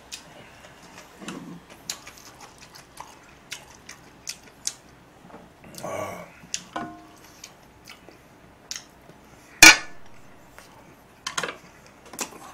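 Tableware sounds while eating: chopsticks and utensils tapping and clinking against bowls and a pot in scattered clicks, with one loud sharp clack about ten seconds in.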